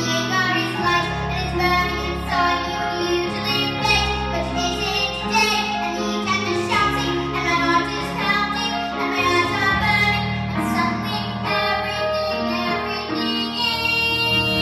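A young girl singing solo over an instrumental accompaniment; near the end her voice drops out and the held accompaniment carries on.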